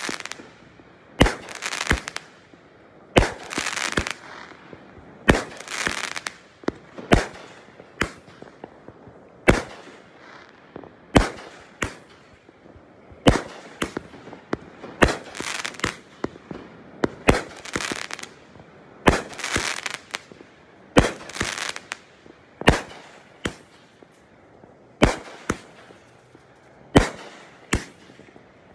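Keystone Top 20 500-gram aerial repeater cake firing shot after shot, with sharp reports about one a second, each followed by a short crackling tail as the shells break overhead.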